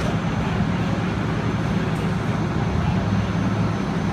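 Fire engine running steadily at the scene, a constant low engine rumble with a hiss of noise over it.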